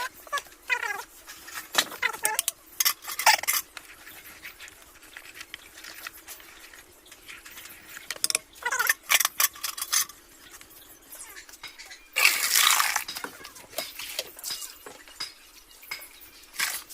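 Metal utensils clinking and scraping against cookware in irregular taps, with a louder hissing burst lasting about a second about twelve seconds in.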